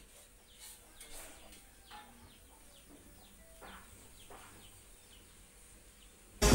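Faint, quick bird-like chirps, each falling in pitch, scattered over a low background. Just before the end, loud electronic music with a strong beat cuts in suddenly.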